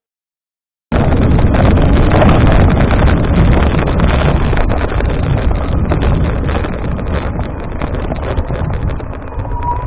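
Wind buffeting the microphone over a steady rumble of riding downhill on rough ground. Near the end a high, steady brake squeal starts to sound; the pads are probably worn.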